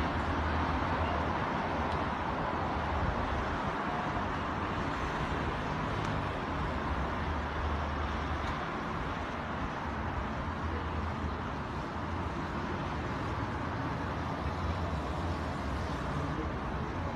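Car engines and road traffic heard from high above the street: a steady wash of noise with a low engine hum that swells and fades.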